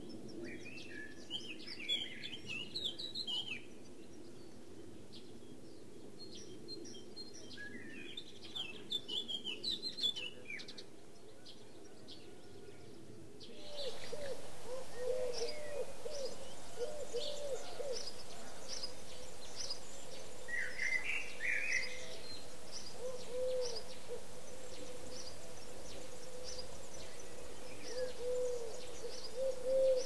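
Wild songbirds singing short warbling phrases twice. About halfway through the background gets louder and low cooing notes repeat in runs, with one more brief song phrase in between.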